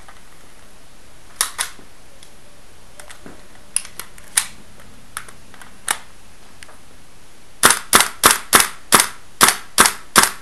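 Airsoft guns firing single shots as sharp cracks: a pair, then a few scattered shots, then a quick even string of about nine shots near the end, roughly three a second.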